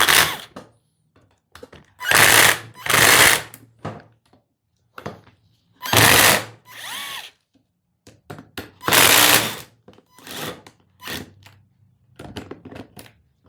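Cordless power driver running in four short bursts of about a second each, backing out a chainsaw's engine mounting bolts, with lighter clicks and knocks between the bursts.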